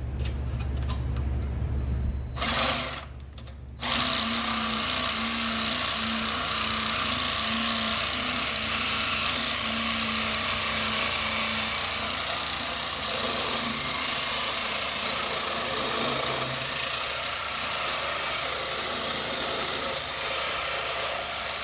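A low steady hum, then after a short break a power tool running steadily with a loud, even hiss.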